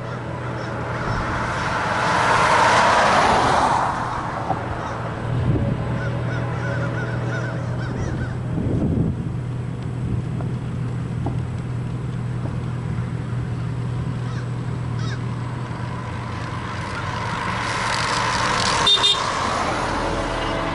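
Train locomotive sounding its horn over the steady low drone of its engine, with louder swells about two seconds in and again near the end.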